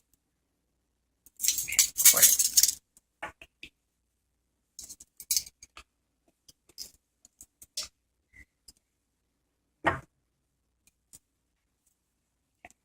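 Metal measuring spoons scraping and clinking while cinnamon is scooped and levelled off. A rustling scrape lasts about a second, starting about one and a half seconds in. Scattered light clicks and clinks follow, the sharpest a single knock near ten seconds.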